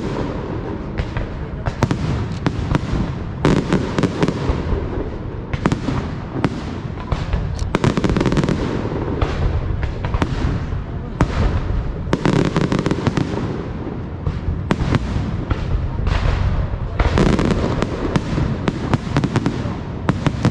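Aerial fireworks display going off in a dense, continuous barrage of bangs and crackling, swelling into louder volleys about every four to five seconds.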